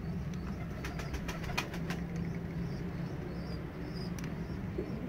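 Domestic pigeons cooing low in a loft, over a steady low hum, with a few light clicks in the first two seconds.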